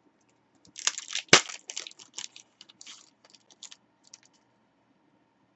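Trading cards being flicked and shuffled through by hand: a quick run of crisp card-edge clicks and rustles, with a sharp snap about a second in, thinning out by about four seconds.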